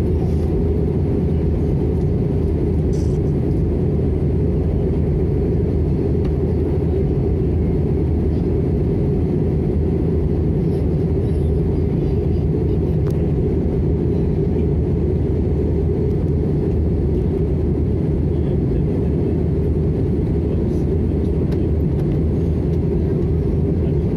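Steady low drone inside an Airbus A320's cabin in flight, from its CFM56 turbofan engines and the air rushing past the fuselage.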